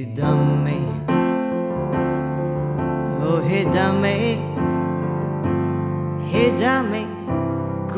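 Music: electric piano chords held over a deep bass, with a melody line that bends in pitch twice, around the middle and near the end.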